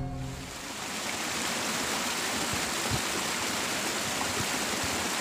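Water running steadily through a small irrigation ditch, an even rushing hiss; the tail of the intro music fades out in the first half-second.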